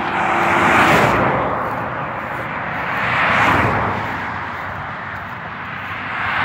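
Wind and road noise of a moving car filmed through an open window: a steady rush that swells and fades in slow waves.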